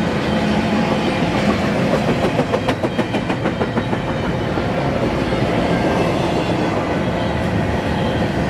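Double-stack container train's well cars rolling past: a steady rumble and clatter of steel wheels on rail, with a quick run of rhythmic wheel clicks about two to four seconds in.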